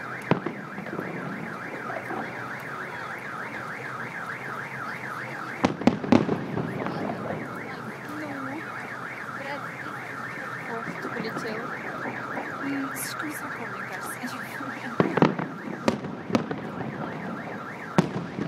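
Firework shells bursting with sharp bangs: one just after the start, a cluster about six seconds in, more about fifteen seconds in and one near the end. A car alarm warbles steadily beneath them.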